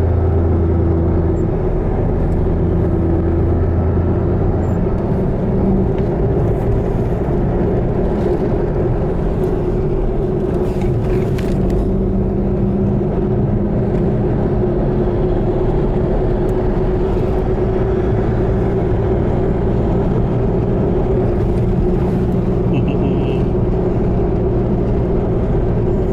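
Car engine and road noise while driving: a steady hum whose engine note shifts in pitch a few times, the lowest tone dropping away about five seconds in.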